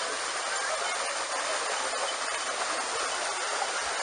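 Steady wash of splashing water as many dogs and people wade through a shallow pool.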